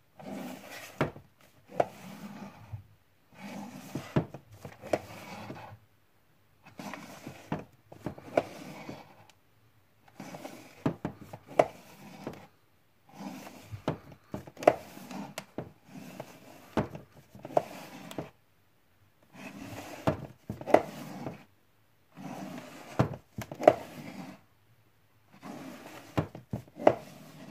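Plastic Blu-ray cases handled one by one on a wooden shelf, clacking against each other and the shelf with some scraping. The clacks come in repeated short bursts a second or two apart, with brief quiet between.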